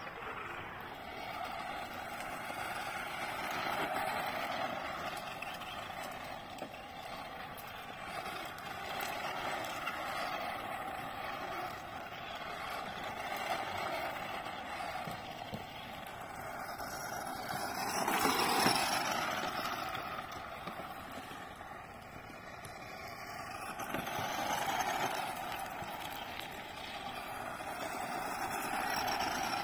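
Tamiya CC-01 radio-controlled rally car, rear-wheel drive, driving on gravel: the electric motor and gears whine steadily, with tyres on loose stones. It swells and fades as the car comes near and moves off, loudest about two-thirds of the way through.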